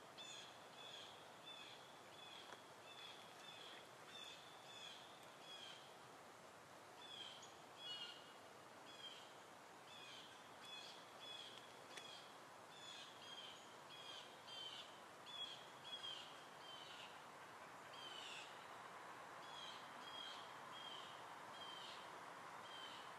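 Faint small birds chirping, short high notes repeated about twice a second, some sliding down in pitch, over a steady hiss.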